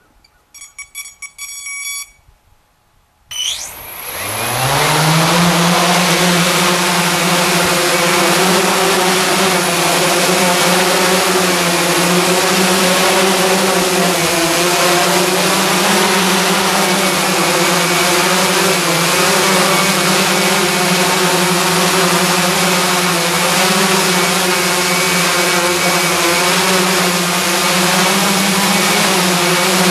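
A quick series of beeps, then the giant hexacopter's six brushless motors and propellers, driven by Castle Creations Phoenix Edge 100 ESCs, spin up with a rising pitch a few seconds in and settle into a loud, steady drone as it lifts off and hovers.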